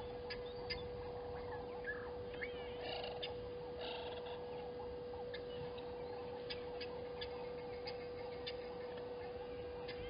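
Wild birds calling: a few warbling chirps about two and a half seconds in and a short harsh call at about four seconds, with scattered sharp clicks throughout over a steady high hum.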